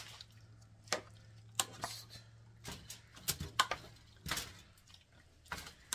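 Spatula scraping and knocking against a metal pot as seasoned shrimp are scooped out and drop wetly onto aluminium foil: a series of separate short clicks and knocks.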